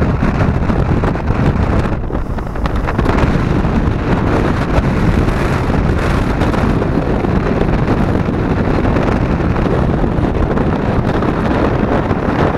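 Strong storm wind buffeting the microphone in a steady, loud rumble, with surf washing up the beach underneath.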